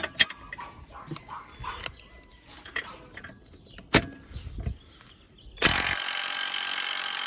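Clicks and knocks as a socket and wrench are handled and fitted, then about five and a half seconds in the cheap impact wrench starts and runs loud and steady, working a fastener torqued to 150 foot-pounds loose.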